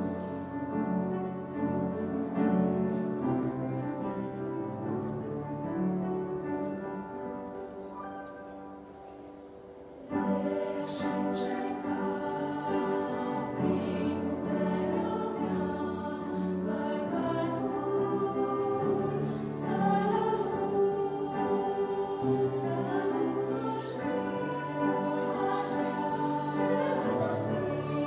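Upright piano playing sustained notes that fade away, then an ensemble of six women's voices comes in singing about ten seconds in, with the piano accompanying.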